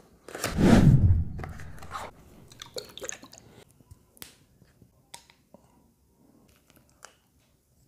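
Mouth sounds of someone taking a spoonful of herbal syrup: a loud slurp about half a second in, then lip smacks and small mouth clicks over the next few seconds as it is swallowed, dying away.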